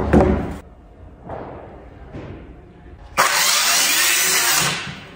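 Handheld circular saw cutting through a panel for about a second and a half, starting about three seconds in and dying away near the end. A sharp thud right at the start.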